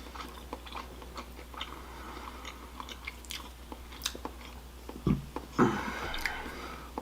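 Chewing and biting into a sweet potato wedge, with small mouth clicks and a louder brief noise about five and a half seconds in.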